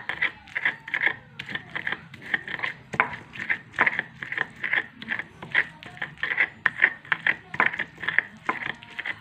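Pestle grinding chillies into sambal paste against a stone mortar (ulekan and cobek), in quick repeated strokes of about two to three a second.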